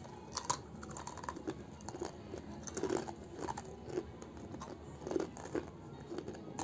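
Two children chewing and crunching spicy red snack sticks, in irregular soft crunches.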